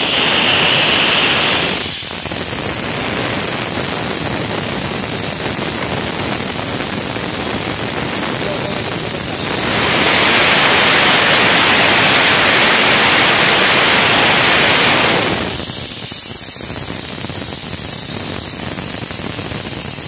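Compressed air hissing steadily out of the air compressor tank's opened drain cock, letting out the pressure built up to the automatic cut-off. The hiss eases about two seconds in, swells again from about ten seconds, and drops back at about fifteen seconds.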